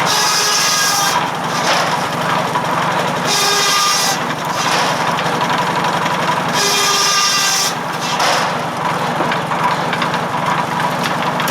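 Circular firewood saw driven by a 1945 McCormick W4 tractor, cutting through wood three times, each cut lasting about a second. The tractor's four-cylinder engine runs steadily underneath.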